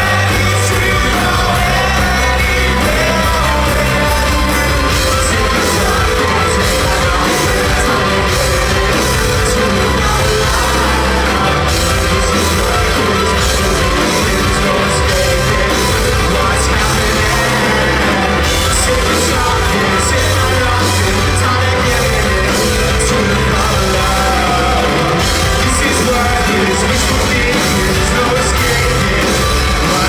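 A rock band playing live and loud, with electric guitars, bass, drums and a lead singer, heard from inside the crowd. Audience members yell and sing along over the band.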